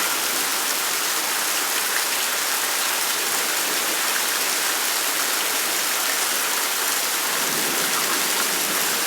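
Rain pouring steadily, a dense even hiss with no let-up.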